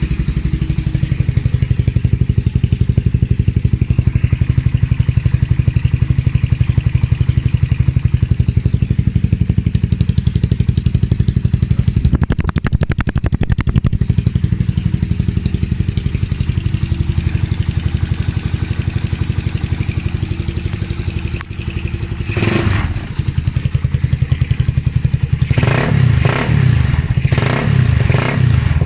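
Suzuki Raider R150's single-cylinder four-stroke engine running through an Apido aftermarket exhaust pipe: a steady, loud idle, one short rev about 22 seconds in, and a series of quick throttle blips near the end.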